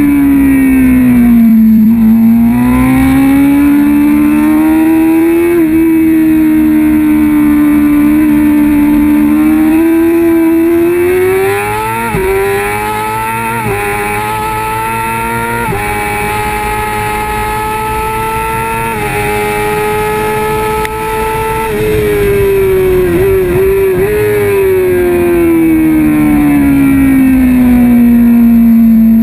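Onboard sound of a Kawasaki ZX-6R 636 inline-four racing engine at high revs. The note dips at first, then climbs and holds high through the middle with a few brief changes. It falls away steadily over the last few seconds as the bike slows.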